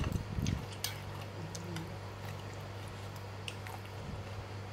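A metal fork and spoon working in a ceramic noodle bowl, giving a few soft knocks at the start and then only sparse faint clinks, over a steady low hum.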